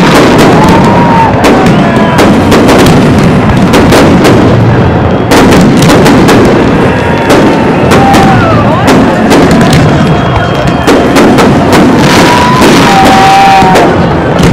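Fireworks display: aerial shells bursting in a rapid, continuous barrage of overlapping bangs, with a few short whistling tones here and there.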